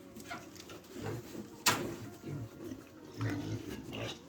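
Pigs grunting, with a sharp knock about one and a half seconds in.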